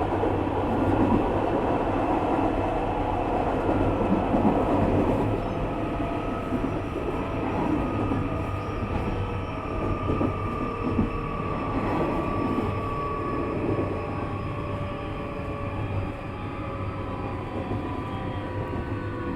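Interior of a Nishitetsu 3000 series electric multiple unit running: a steady rumble of wheels and running gear, with the whine of the traction motors and inverter sliding slowly down in pitch as the train slows for the next station.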